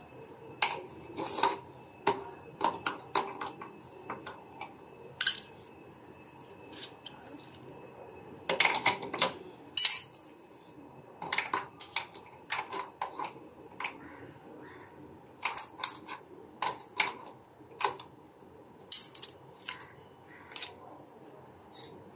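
Metal spanners and pliers clinking and clattering as they are picked up, dropped and knocked together, in irregular sharp clinks with short pauses between.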